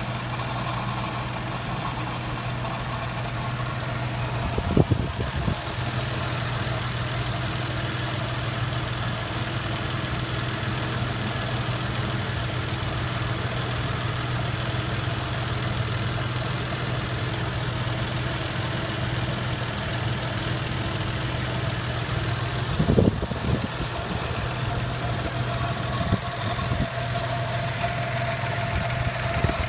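Toyota 3VZ-E 3.0 V6 idling steadily, with a strange noise in the intake that the owner is trying to trace. There are two brief thumps, about five seconds in and past the twenty-second mark, and a steady tone comes through more clearly near the end.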